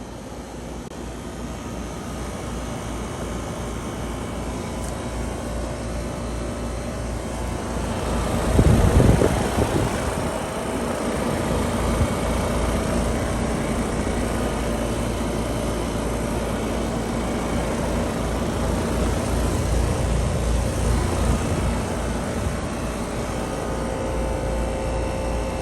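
American Standard Silver Series 3-ton heat pump outdoor unit running steadily in heat mode: a fan rush over a compressor hum. There is a louder whoosh about a third of the way through.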